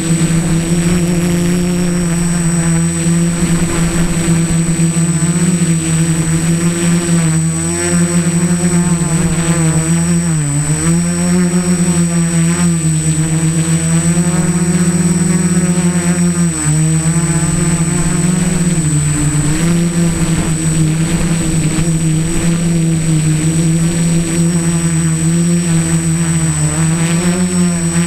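Home-built mini tricopter's electric motors and propellers buzzing steadily in flight, heard up close from the camera on its frame. The pitch dips briefly about four times as the motors slow and comes back up. A thin steady high whine sits above the buzz.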